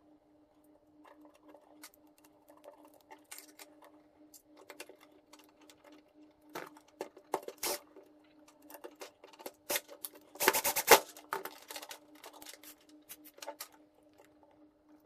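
Small plastic and metal parts clicking and tapping as ball links and a servo horn are fitted by hand, then a cordless drill-driver whirs briefly, about ten seconds in, driving a small screw into a ball link on the steering servo mount. The drill is the loudest sound, over a faint steady hum.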